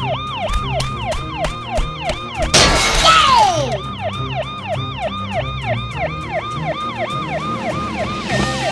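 Police-car siren in a fast yelp, sweeping up and down about three to four times a second. A little over two and a half seconds in, a loud crash breaks through with a falling whistle, then the siren carries on.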